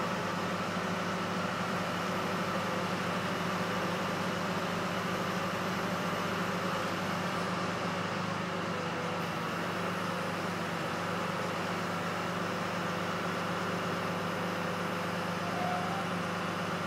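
Heavy work-truck engines idling steadily, a constant low drone from the crane truck and bucket truck of a tree-removal crew.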